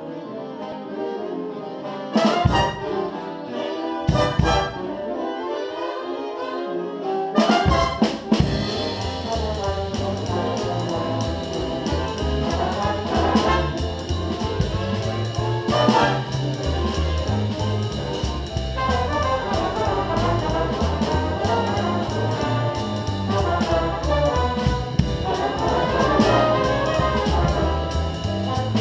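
Jazz big band: the trumpets and trombones open alone with two sharp ensemble hits, then about seven seconds in the drum kit and upright bass join and the full band swings on together.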